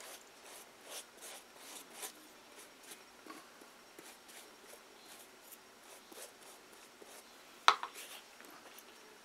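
Paintbrush stroking glue onto a cardboard wall: a run of soft brushing scrapes, then scattered light taps. A single sharp knock comes about three-quarters of the way through, the loudest sound.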